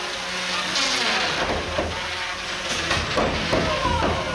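Antweight combat robots fighting in the arena: a steady motor whir with a couple of sharp knocks from hits a little under three seconds in.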